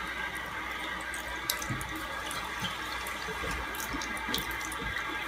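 Bathroom tap running a steady stream into a sink, the water splashing onto a cat sitting in the basin, with scattered small splashes and drips.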